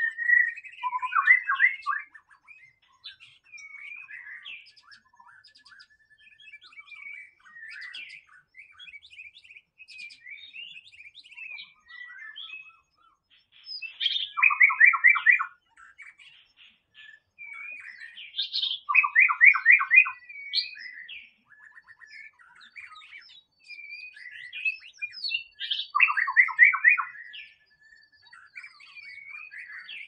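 Male white-rumped shama singing a varied song of whistles and chattering notes. Four loud, fast, stuttering phrases stand out, one at the start and three in the second half, with softer notes in between.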